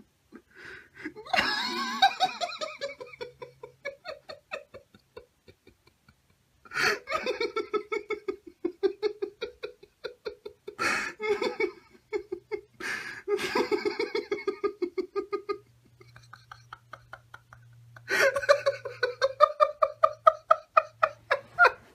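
Uncontrollable human laughter in three long bouts of rapid, pulsed 'ha-ha-ha', with short breaks for breath about six seconds in and again near sixteen seconds.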